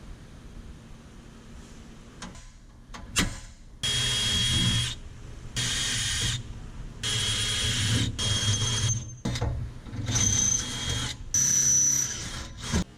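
Power drill boring holes with a 5/16 in. bit through a car's radiator core support, run in about six short bursts of roughly a second each, with a high whine in each burst.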